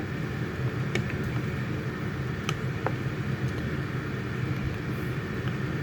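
A steady low hum, even in level throughout, with a few faint light clicks scattered through it.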